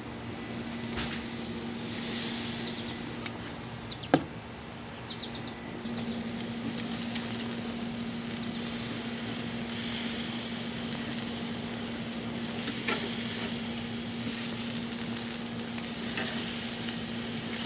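Thick picanha steaks sizzling as they sear over hot charcoal on a yakitori grill's wire grate, the sizzle getting louder about six seconds in as more steaks go down. A few sharp clicks of metal tongs on the grate.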